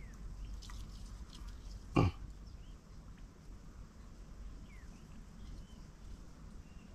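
A single short, low grunt-like sound about two seconds in, over faint outdoor background with a few faint high chirps.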